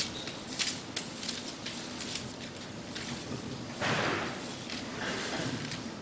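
Thin pages of a Bible rustling and clicking as they are leafed through at a lectern, picked up by a close microphone. About four seconds in, a short cough into the hand.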